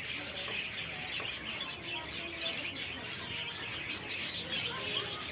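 A dense chorus of small birds chirping, with many quick, high-pitched chirps overlapping several times a second and a few fainter, lower notes among them.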